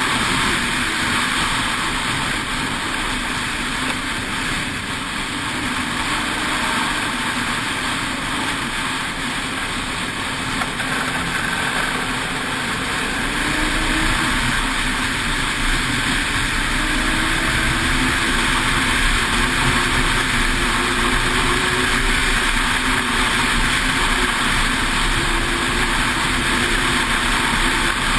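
Ski-Doo 600 X-RS snowmobile running along the trail at speed, its engine drone mixed with track and wind noise. The engine pitch and loudness climb a little about halfway through.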